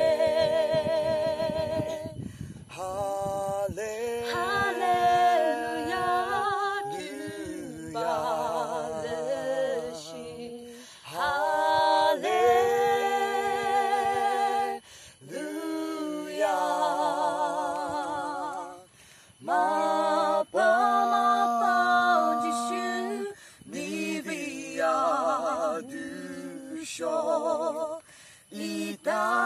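A woman and a man singing a duet without accompaniment, in held phrases with a wavering vibrato, broken by short pauses for breath.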